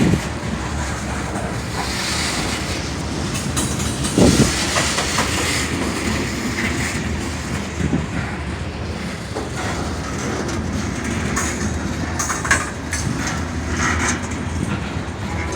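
Freight train's cars rolling past in reverse as the locomotives shove the train, steel wheels clacking over the rail joints over a steady low diesel rumble, with a single knock about four seconds in. The locomotives are pushing hard, in about notch 6 or 7 by the onlooker's guess.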